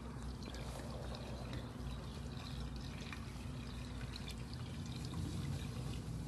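Chicken broth pouring in a steady stream from a carton into a cast-iron Dutch oven.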